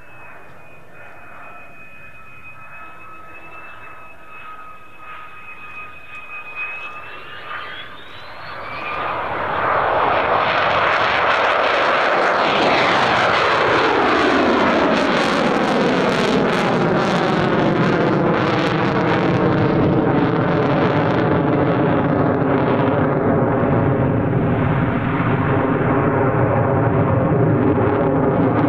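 Mitsubishi F-2 fighter jet's turbofan passing close: a faint high whine rises in pitch about seven seconds in. About nine seconds in it is overtaken by a loud jet roar that keeps going, with a falling, swirling sweep through the roar as the jet goes by.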